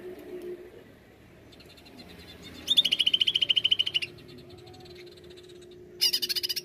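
Greater green leafbird (cucak ijo) singing: a loud, rapid, buzzing trill lasting over a second, then a shorter, higher burst near the end, over a faint steady low hum.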